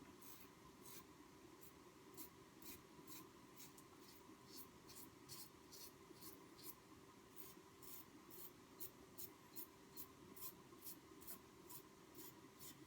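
Faint short scraping strokes, about two or three a second, from a Merkur 34C double-edge safety razor with a Polsilver blade cutting through lathered stubble.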